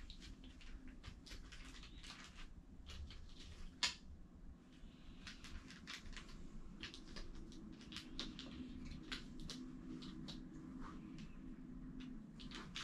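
Faint rustling, scraping and light clicks of hands handling the foam padding and packaging in a rifle scope box, with one sharp click about four seconds in.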